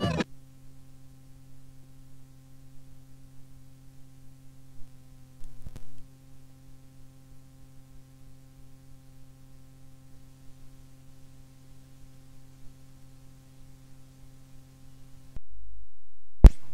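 Hum from cassette tape playback in the gap between two songs: a steady low hum with faint overtones and a soft click about six seconds in. Near the end comes a low rumble for about a second, then a sharp, loud click just before the next song starts.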